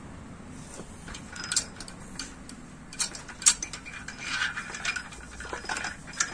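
Hand-fitting of kick-start shaft parts in an open Yamaha LC135 crankcase: a few sharp metal clicks, then light rattling and scraping as the parts are worked onto the shaft and the return spring is set.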